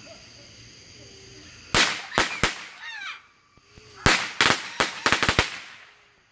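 Firecrackers going off on the ground: about ten sharp bangs in two bursts, three close together just under two seconds in, then a rapid string of about seven from four seconds in.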